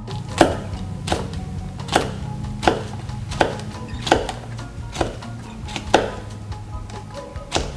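Kitchen knife slicing a red chili into rings on a plastic cutting board: regular sharp taps of the blade on the board, about one every three-quarters of a second.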